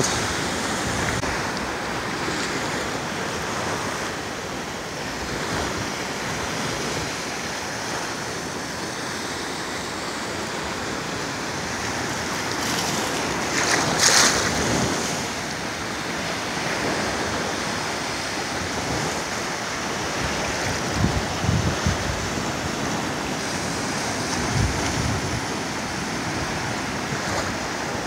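Small Atlantic surf breaking and washing over shallow water, a steady hiss of waves, with a louder splash about halfway through. Gusts of wind buffet the microphone now and then.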